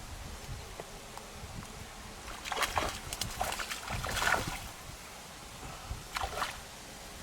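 Water splashing in a few irregular bursts, a cluster in the middle and a shorter one near the end, over a low rumble of wind on the microphone.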